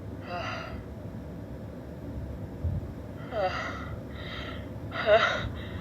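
A woman's short, catching gasps as a sneeze builds and stays stuck, her nose stuffed up: five breathy, half-voiced inhales, one alone near the start and four in quick succession in the second half, the loudest about five seconds in. No sneeze comes out.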